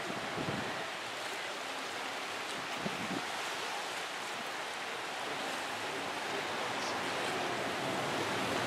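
Wind and choppy sea: a steady rushing noise, with a few low gusts buffeting the microphone early on, building slightly toward the end.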